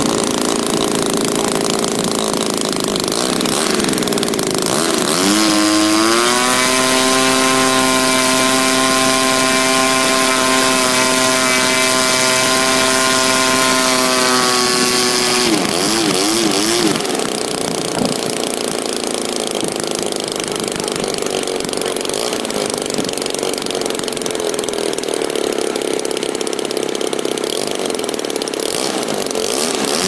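DLE 20cc single-cylinder two-stroke gas engine of a large model airplane idling, then run up about five seconds in to a steady high-pitched run held for about ten seconds, then throttled back to a wavering idle.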